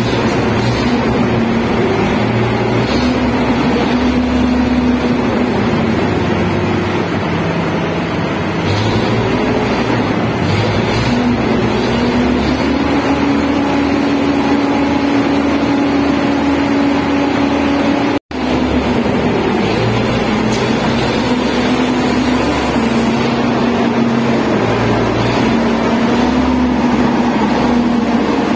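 Schwing shotcrete machine running loud and steady, a mechanical drone with a humming tone that shifts up and down in pitch and a pulsing low rumble underneath. The sound cuts out for an instant about eighteen seconds in.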